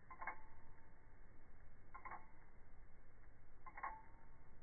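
An 18-size Waltham Model 1879 P.S. Bartlett pocket-watch escapement ticking, slowed down: three drawn-out ticks about 1.8 seconds apart, each a quick cluster of clicks with a short ring. The watch is fully wound after a balance staff replacement, and its balance is swinging at nearly 360 degrees of amplitude, the sign of a healthy restaff.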